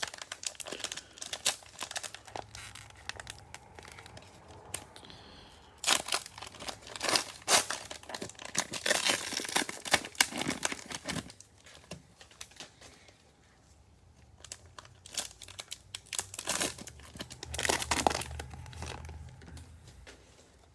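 Cellophane wrapper of a trading-card cello pack being torn open and crinkled, in three spells of crackling with quieter gaps between.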